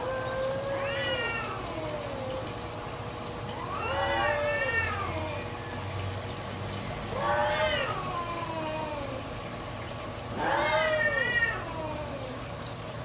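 Domestic cats yowling at each other in a territorial standoff before a fight: about four long, wavering caterwauls, one after another with short lulls between.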